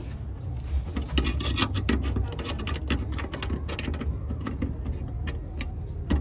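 Irregular light metallic clicks and clinks of a hand wrench working on the bolts of the propeller shaft's center bearing flange, over a steady low hum.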